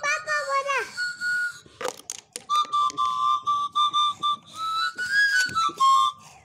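High whistled notes, held and stepping between a few pitches like a simple tune, with sliding notes near the start and a sharp click about two seconds in.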